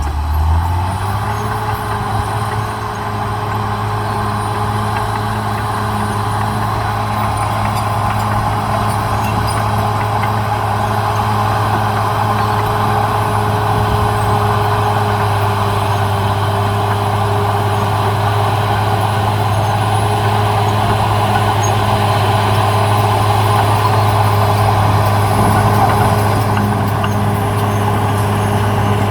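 Diesel engine of a CAT D6R XL crawler bulldozer running steadily at working speed, its pitch rising briefly at the start and then holding.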